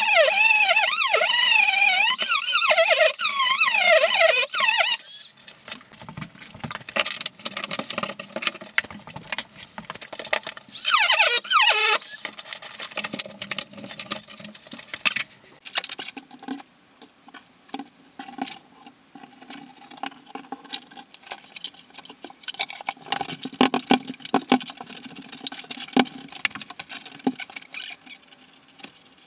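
Sped-up time-lapse audio of tile and niche work: high, wavering squeals for about the first five seconds and again briefly around eleven seconds, then quieter rapid clicking and tapping.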